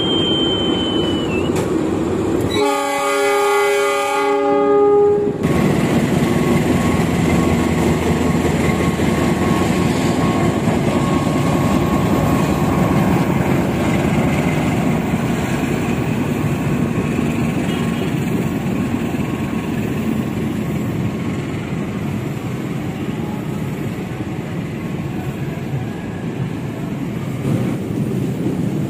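A train horn sounds one held multi-tone blast for about three seconds, a few seconds in. It is followed by the steady rumble of a train running on the rails.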